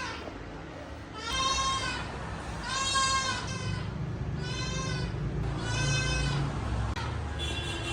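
Dog crying: a series of high, drawn-out whimpering cries that rise and fall in pitch, about five of them a second or so apart.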